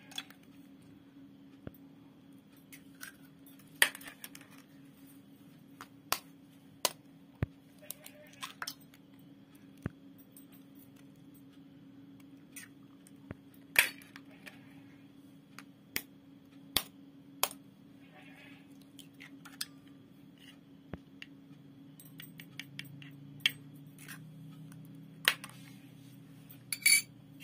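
Eggs being cracked into a stainless steel bowl: irregular sharp taps and clicks of shell on the metal, with a cluster near the end, over a steady low hum.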